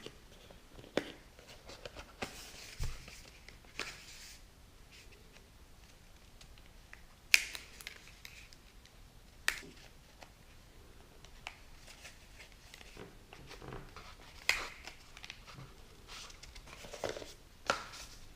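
Scattered clicks and light rustling as phone accessories and box packaging are handled, with several sharp taps spread out irregularly.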